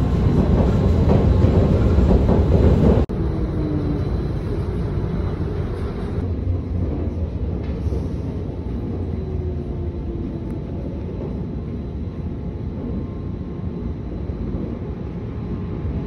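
Rubber-tyred Taipei Metro Wenhu line train running, heard from inside the car: a steady rumble of the train in motion. About three seconds in it drops abruptly to a quieter, steady running noise.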